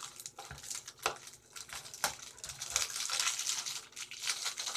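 Rustling and clattering of small items being handled, with several sharp clicks and knocks scattered through it and denser rustling in the second half.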